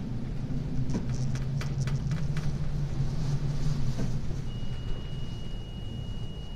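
Low, steady drone of a ship's engine heard on board, with a quick run of clicks and rattles about a second in. A steady high-pitched tone starts about halfway through and holds.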